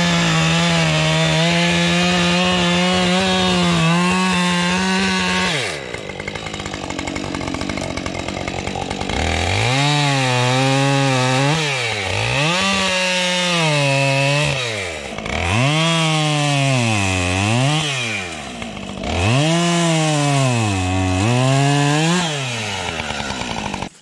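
Husqvarna chainsaw cutting a ring through the bark around a beech trunk to girdle it. It holds a steady high pitch at full throttle for the first five seconds or so, drops back for a few seconds, then rises and sags in pitch four times as the chain bites in around the trunk.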